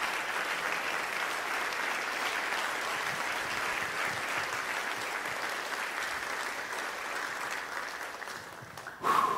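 Congregation applauding steadily, the clapping thinning out near the end. It is followed by a short, loud thump with a brief ringing tone.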